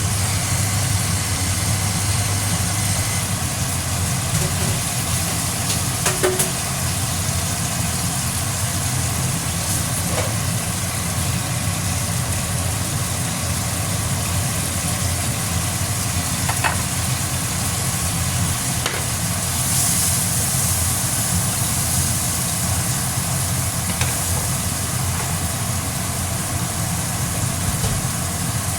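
Tomatoes sizzling in oil in a pan, over a steady low hum, with a few light utensil clicks about a quarter, a third, halfway and two-thirds through.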